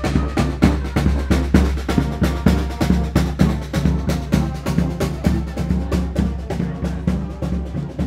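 Street brass band playing: drums keeping a steady beat under sousaphone bass notes and horns.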